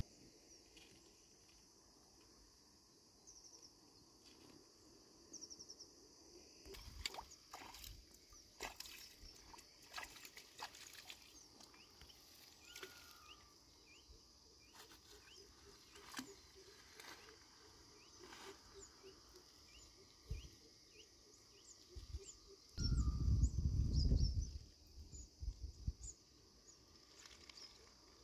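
Outdoor riverside ambience: a steady high hum with scattered short bird chirps and a few clicks, and a loud burst of low rumble about 23 seconds in.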